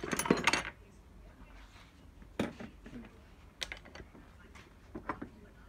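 A short burst of clatter at the start, then a few scattered sharp clicks and light knocks of small tools and metal parts being handled on a workbench.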